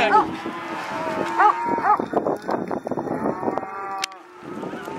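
A mob of calves bawling, with several short overlapping calls. A single sharp click comes about four seconds in, and the bawling falls away after it.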